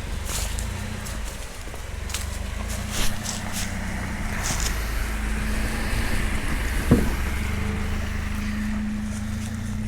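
Vehicle engine running steadily as the vehicle drives, with scattered clicks and knocks, a knock about three seconds in and a sharp thump about seven seconds in.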